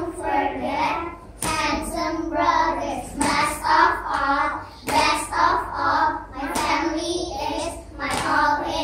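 A small group of young children singing a song together in phrases, with a few sharp hand sounds among them.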